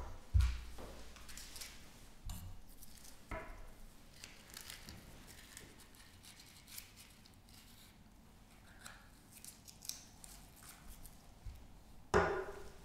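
Light knocks, clicks and scrapes of lab items handled on a paper-covered bench: a glass spirit lamp set down, its metal cap taken off, and a matchbox. Near the end comes a louder clatter as an aluminium drink can is picked up.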